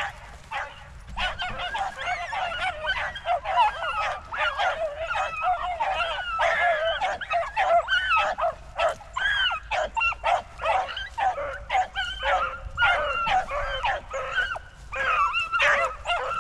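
Pack of beagles giving tongue on a rabbit hunt: a continuous run of high, overlapping yelping barks from several dogs, the cry of hounds working a rabbit's scent.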